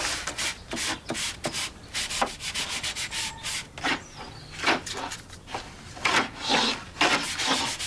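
Sandpaper rubbed by hand over the edges of wooden drawers in quick back-and-forth strokes, about three a second, smoothing down the unevenness of warped drawers.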